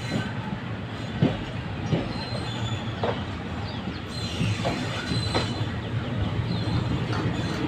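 Passenger train coaches rolling slowly over points and rail joints: a steady low rumble with irregular wheel knocks and faint, high-pitched wheel squeal.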